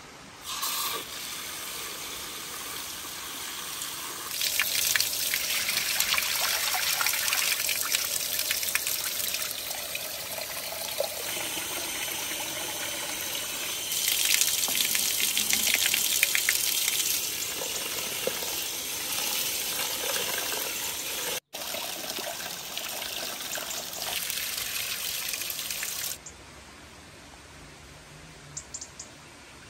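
Water running from an outdoor tap and splashing into a concrete basin as rice is rinsed, in stretches that grow louder and softer. It stops suddenly a few seconds before the end.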